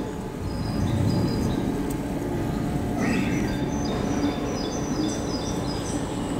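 Outdoor background of a town square: a steady low rumble with small birds chirping high and repeatedly in two spells, early and again from about the middle.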